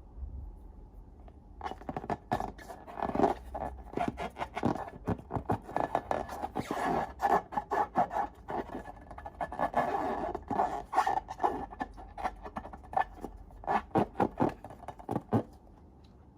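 Slime being mixed and squished, a dense run of sticky clicks and pops that starts about two seconds in and stops shortly before the end.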